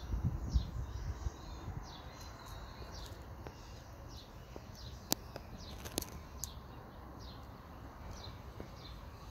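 A small bird chirping over and over in short falling notes, about one or two a second, with a few sharp clicks. There are low bumps in the first second or so.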